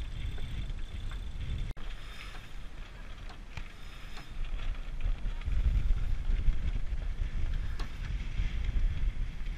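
Wind buffeting the microphone on a sailing yacht's deck, with a low rumble of gusts and the rush of the boat moving through the water. There are a few light knocks, and a momentary dropout about two seconds in. The gusts get heavier about halfway through.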